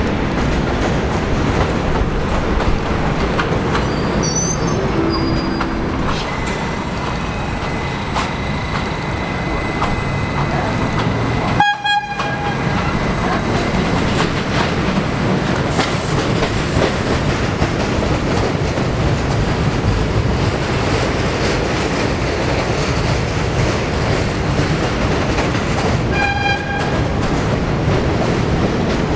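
Budd R32 subway train running into and through a station, a steady loud rumble of wheels and traction motors with rail clicks. Two short horn blasts sound, one about 12 seconds in and another near 26 seconds.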